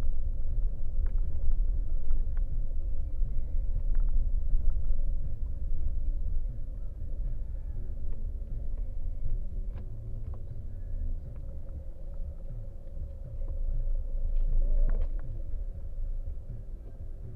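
Car driving along a sand track, heard from inside the cabin: a steady low engine and road rumble with scattered small rattles and knocks. It is louder for the first few seconds, then eases off.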